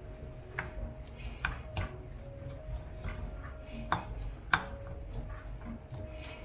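A wooden utensil knocking and scraping against a black ceramic bowl as rice is pushed and spread in it: a dozen or so sharp, irregular clicks, the loudest one about four and a half seconds in.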